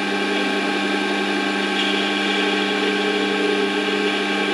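Warco WM180 mini lathe running steadily, a hum of several steady tones over a hiss, while its carriage is hand-fed so the tool takes a very light skim cut along an aluminium shaft. A higher hiss joins about two seconds in.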